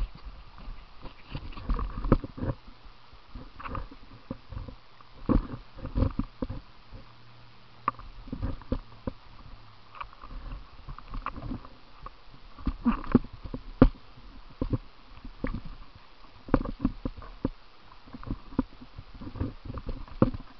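Paddling a plastic kayak through moving river water: water rushing and splashing around the boat, with many irregular knocks and thumps from the paddle and hull.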